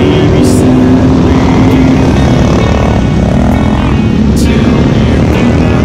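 Many motorcycle engines running and revving as a caravan of motorcycles rides past.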